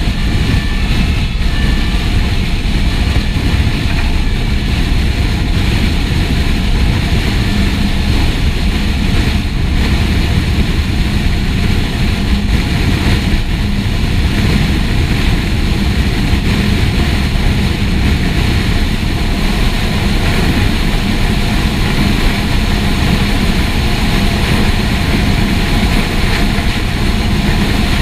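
A fire engine's diesel engine running under way, with steady rumble and road noise as the truck drives.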